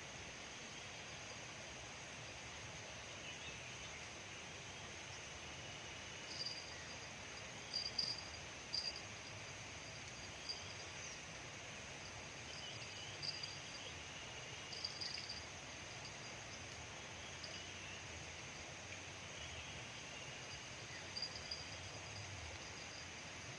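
Outdoor ambience by a reservoir: a steady background hiss with short, high chirps every few seconds from small animals.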